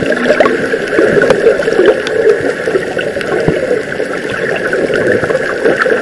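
Water gurgling and bubbling, muffled as heard underwater, with scattered clicks.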